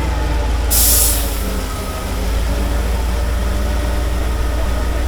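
Heavy diesel engine of an M3 amphibious bridging vehicle running steadily with a low drone, and a short burst of hissing about a second in.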